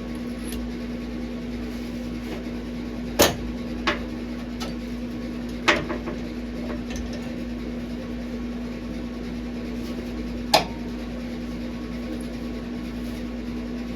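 A few sharp knocks, the loudest about three, six and ten seconds in, with fainter clicks between, over a steady low hum.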